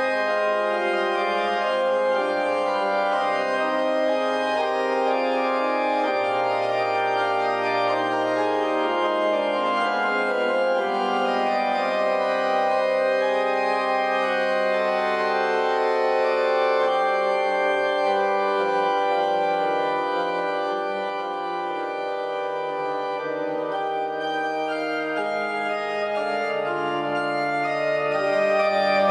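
Slow instrumental background music of sustained organ chords, the bass note shifting every few seconds.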